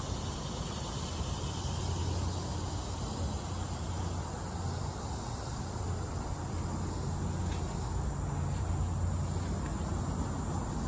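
Dump truck's Cummins ISB diesel engine idling with a steady low hum, and insects chirring at a steady high pitch.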